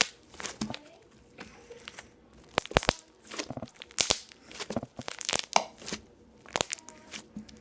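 Homemade clear-glue slime being poked and squeezed, giving off its crunchy noise: an irregular run of crackling, popping clicks as air pockets in the slime burst.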